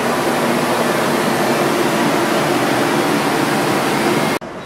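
Steady rushing noise on the open deck of a car ferry under way: wind and passing water over a faint low hum. It cuts off suddenly near the end.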